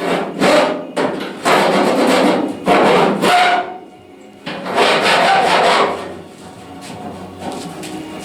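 Rough scraping strokes, several in a row with short gaps between them, typical of hand work on metal bodywork.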